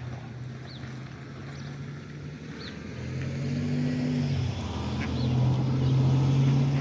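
A motor vehicle's engine running as a steady low hum that grows louder over the second half, with faint short high bird chirps about once a second.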